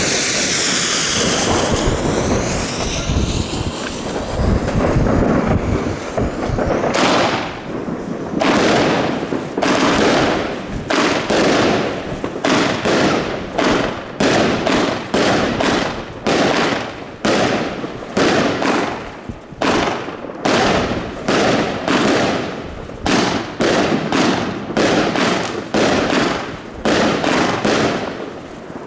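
A Magnum WCKD SIX 'KAN' fireworks cake, 20 shots from 25 mm tubes, firing: a hiss at the start, then from about seven seconds a steady string of shots, roughly one or two a second, the shells bursting overhead.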